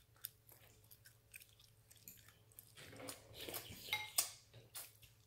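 A baby chewing and gumming food held to its mouth with its hands. The wet mouth and lip smacks come faint and scattered, and grow denser and louder about three to four seconds in.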